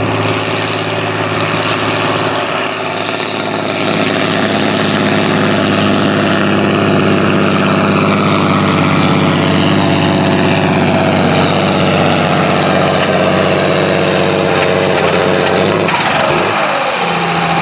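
Farm pulling tractor's engine running hard under load during a pull, steady and loud, growing a little louder about four seconds in. Near the end the engine note drops off abruptly and a lower steady engine tone takes over.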